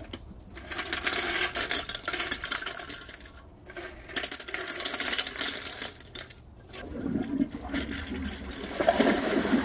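A bowlful of small Christmas ball ornaments being tipped into a toilet, clattering and clicking against each other, the bowl and the porcelain as they drop into the water, in two runs of rattling. Near the end the sound turns into a fuller wash of water and jostling ornaments.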